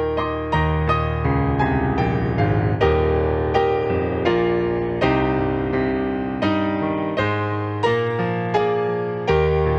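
Calm piano music: notes and chords struck about every three-quarters of a second, each fading away, over held low bass notes.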